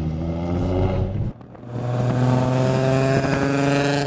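A car engine pulling forward with slowly rising revs, heard from inside the cabin. After a cut about a second in, the 2004 Nissan 350Z's 3.5-litre V6 runs at steady high revs alongside.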